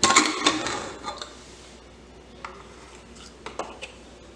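Aluminium pressure cooker lid being twisted loose and lifted off: a scrape and clatter of metal in the first second, then a few light metal clicks.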